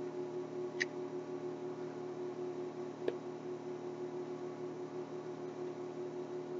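Quiet room tone: a steady low hum, with a faint click about a second in and another about three seconds in.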